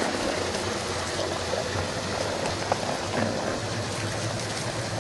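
Water rushing steadily, with a low steady hum underneath and one sharp click about two and a half seconds in.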